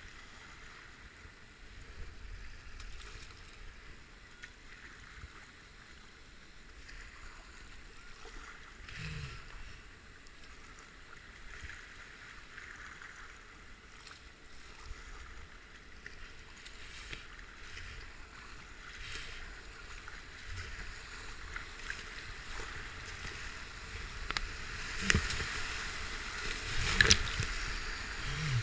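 Kayak paddling down a river: faint water rushing past the hull with occasional paddle strokes, the rushing of whitewater rapids growing louder near the end, with two sharp splashes or knocks in the last few seconds.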